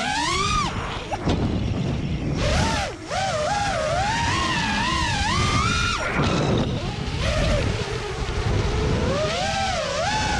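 5-inch FPV racing quadcopter's brushless motors and props (DRP New Yorker motors, Gemfan Hulkie props) whining, the pitch sliding up and down with the throttle, over a steady rush of wind. The whine drops away about a second in and again about six seconds in while the wind noise carries on, then comes back strongly near the end.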